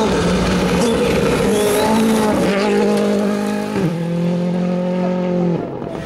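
Ford Fiesta R5 rally car's turbocharged four-cylinder engine running hard on a gravel stage, its pitch dropping in two steps as it shifts, then holding steady before cutting off suddenly near the end.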